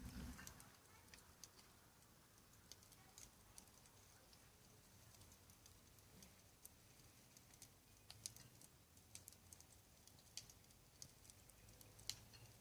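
Wood campfire crackling faintly: scattered small pops and snaps at irregular intervals, with a soft low thump right at the start.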